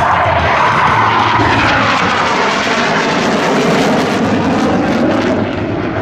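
Loud jet noise from Blue Angels F/A-18 Hornets flying past, the pitch sliding steadily lower as they go by.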